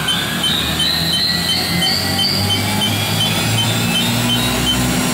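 Spindle of a Haas VF-5/50XT vertical machining center running at high speed with no load, a high whine rising in pitch over the first couple of seconds as it spins up, over a steady low hum and a faint regular chirp about twice a second.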